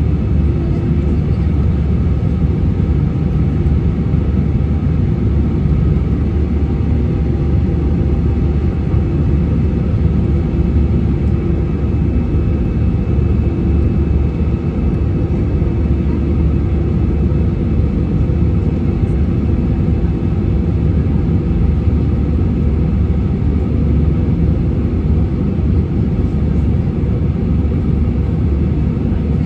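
Airliner engine noise heard inside the passenger cabin: a steady, loud low rumble with a few steady hums over it.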